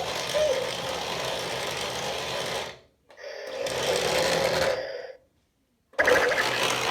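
Small electric motor whirring steadily, dropping out about three seconds in, starting up again and building, then cutting off dead before starting abruptly near the end.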